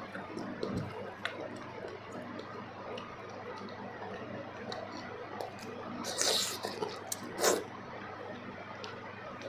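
Close-miked eating: wet, squishy mouth sounds and small smacking clicks of someone eating kuzhi paniyaram with gravy and chutney, with two louder noisy bursts about six and seven and a half seconds in.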